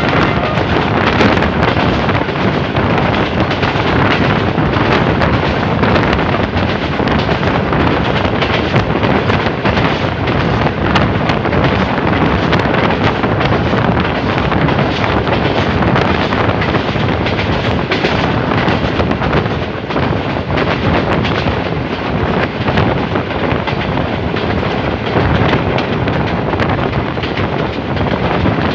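A moving passenger train heard from the side of its coach: a loud, steady rumble of steel wheels running on the rails, dotted with many sharp clacks. Wind buffets the microphone.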